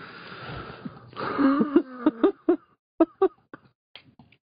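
A person's voice: a breathy, noisy sound for about a second, then a short vocal sound with a wavering pitch, followed by a few faint clicks.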